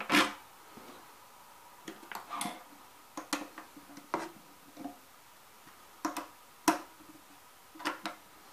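Irregular small clicks and taps of metal and plastic parts as the handle of a .22 powder-actuated nail gun is fitted back on and its bolts are turned with a hand driver. The loudest click comes right at the start.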